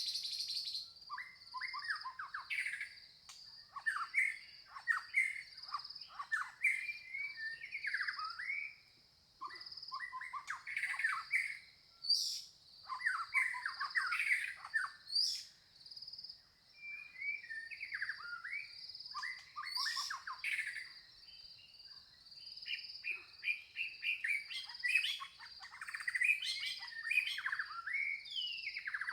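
Small birds chirping in quick clusters of short, sliding notes every second or two, over a steady high-pitched trill that runs without a break.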